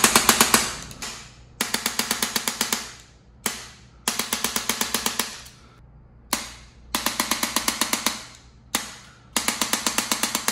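An electric chiropractic adjusting gun is firing its stylus against the lower back to release a muscle spasm. It comes in bursts of rapid clicking strikes, about ten a second and about a second long each, repeated several times. Most bursts are led by a single strike about half a second before.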